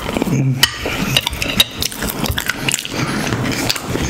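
Close-miked chewing of a mouthful of sauced macaroni pasta: wet smacks and clicks of the mouth at an uneven pace.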